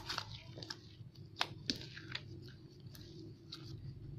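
Scattered faint clicks and crackles of slime containers being handled, a few light taps over a low room hum.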